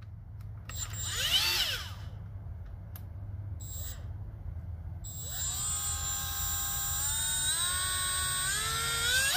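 Milwaukee M12 FUEL cordless right-angle die grinder spinning with no load. About a second in it gives a short burst that spins up and winds down, with a few clicks after it. From about five seconds in it runs continuously, its whine stepping up in pitch several times as the variable speed is raised.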